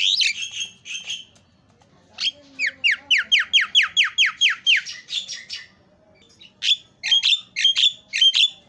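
Caged Javan myna calling: a burst of notes, then a run of about ten quick falling whistles, about four a second, then harsh chattering notes near the end.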